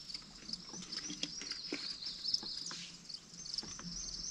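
Small birds chirping and twittering in a steady high-pitched chorus, with a few faint clicks and knocks.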